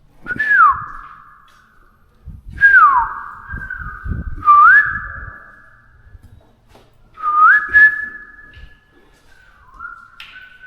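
A person whistling four loud sliding notes, the first two falling and the next two rising, then a flatter, quieter one near the end. Each note echoes in a large, empty room, and some low thumps sound under the second and third notes.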